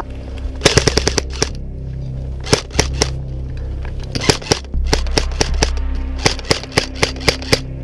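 Airsoft guns firing: a quick burst of about seven shots near the start, then scattered single shots and short bursts, and another rapid run of about eight shots near the end.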